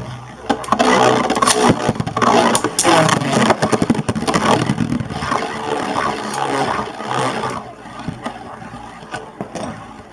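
Beyblade spinning tops, Omega Dragonis 85XF and Driger V2, whirring and grinding across a plastic stadium floor, with many sharp clicks as they strike each other and the stadium wall. The noise eases off about two-thirds of the way through as the tops slow.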